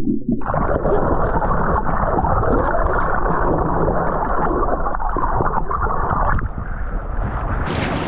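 Underwater sound picked up by a waterproof action camera held in shallow surf: a dense, muffled rush and gurgle of moving water and bubbles. Near the end the camera comes out of the water and the sound opens up into open-air wind and small waves.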